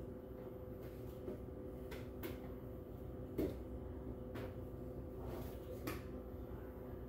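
Quiet room tone with a steady low hum, broken by a few faint knocks and clicks, the clearest about three and a half seconds in.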